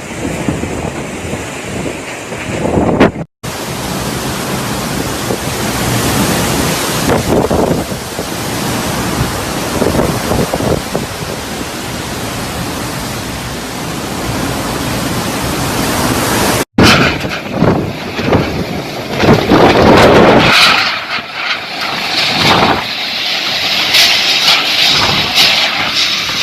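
Typhoon wind and heavy rain: a dense, steady rush of downpour and wind, cutting out abruptly twice, with wind buffeting the microphone in uneven gusts in the last third.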